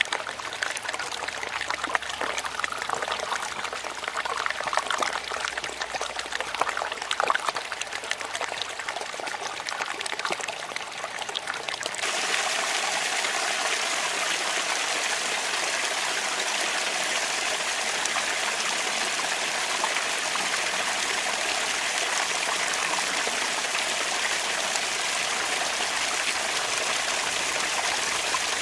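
Water trickling and splashing from a bamboo water fountain, uneven, with many small splashes. About twelve seconds in it switches abruptly to a steadier, denser rush of running water.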